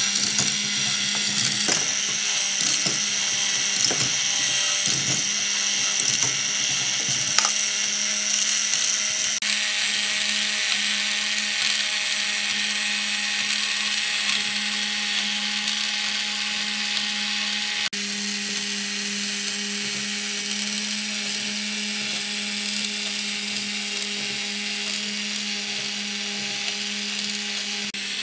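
K'NEX motor whining steadily as it drives the plastic gears and crank of a stair-arm ball lift. The plastic parts click and rattle as the arms step the balls upward. The sound changes abruptly about a third of the way in and again near two-thirds.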